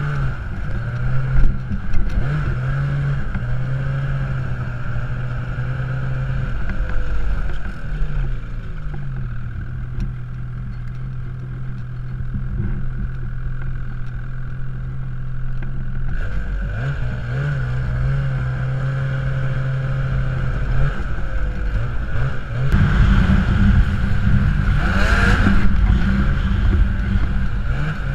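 Ski-Doo snowmobile engine running at low revs, with several short revs up and back down, then opened up near the end, running louder and rising in pitch.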